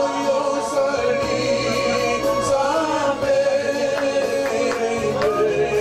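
Voices singing a Christian worship song in long held notes, with a woman's voice leading.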